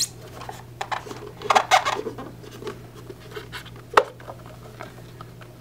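Hard plastic cleaver case being handled and unlatched: plastic scraping and rubbing under the fingers, with a sharp snap about four seconds in as the latch comes free.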